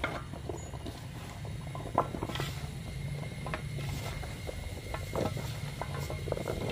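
Hands tossing starch-coated raw potato sticks in a metal bowl: faint soft rustling with scattered light clicks, one sharper click about two seconds in.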